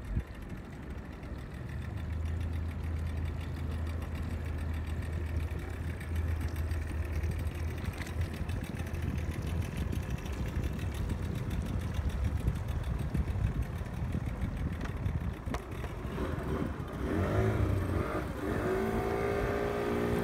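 Motorboat engine running steadily under way. Near the end a nearby outboard motor's pitch rises and falls as it is throttled.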